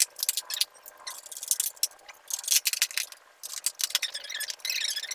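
Rustling, scraping and rattling handling noise as a white diffuser cover is worked onto the face of an 18-inch ring light, in quick, irregular scratchy spurts.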